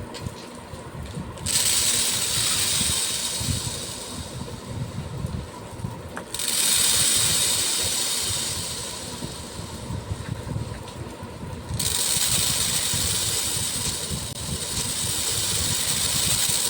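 Small beads being poured in streams, a dense rattle of countless tiny clicks. There are three pours: each starts abruptly, at about a second and a half, about six seconds and about twelve seconds in, and then thins out.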